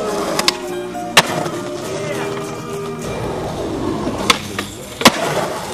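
Skateboard tricks: the wooden board snapping and the wheels slapping down on concrete, five sharp cracks, the loudest about a second in and near the end. Background music plays throughout.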